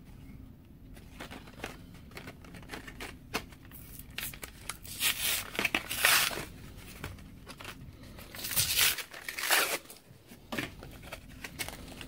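Plastic blister pack on a cardboard backing card being torn open by hand: crackling plastic and small clicks, with several louder rips, the loudest about six and nine seconds in.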